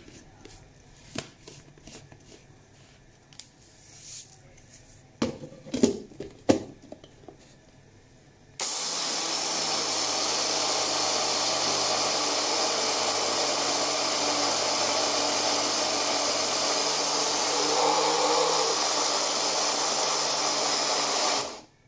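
A few scattered clicks and knocks, then an electric blender dry-grinding roasted linseed (flaxseed) to powder. It starts abruptly, runs steadily and loudly for about thirteen seconds, and cuts off suddenly near the end.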